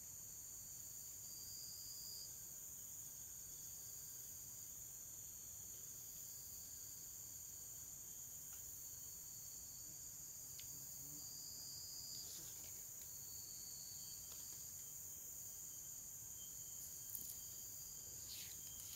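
Faint, steady, high-pitched chorus of crickets and other insects, with a second, lower insect call coming and going in short phrases every few seconds. A few light clicks near the end.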